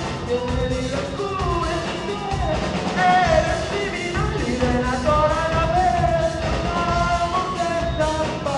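Live rock band playing: a vocalist singing over electric guitars and a drum kit.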